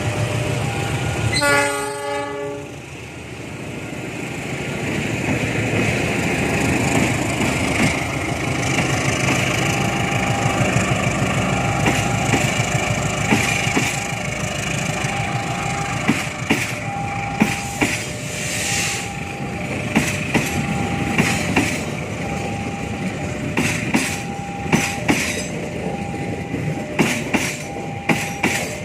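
A passing train: one short horn blast about two seconds in, then the steady rumble of the cars. The wheels start clacking over the rail joints in the second half. A regular on-off beeping tone repeats throughout.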